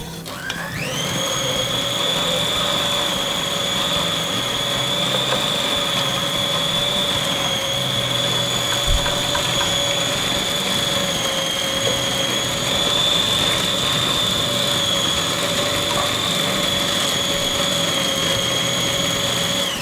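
The motor of an electric food chopper spins up within about a second and runs at a steady high whine. Near the end it cuts off and its pitch falls as it winds down.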